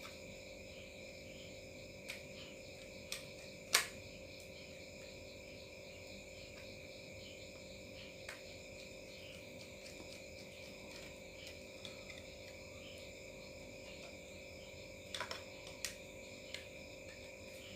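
Scattered small clicks and taps of a laptop SSD and its metal drive bracket being handled and fitted together, the loudest about four seconds in and a few more close together near the end. A steady chorus of crickets runs underneath.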